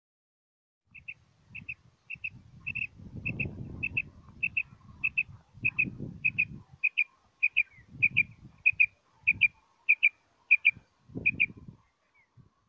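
Caged common quail calling: a quick two-note chirp repeated about every half second, around eighteen times, then stopping near the end. Low rustling rumbles come and go beneath the calls.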